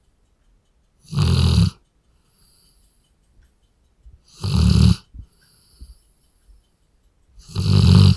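Labrador snoring in its sleep: three loud snores of under a second each, about three seconds apart, with faint breathing between them.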